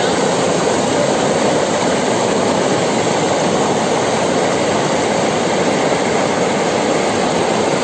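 Fast white water of Catherine Falls rushing over rock, recorded right at the water's edge: a loud, steady rush.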